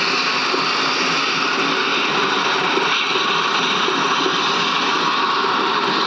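Steam locomotive hissing steadily as it vents steam around its cylinders.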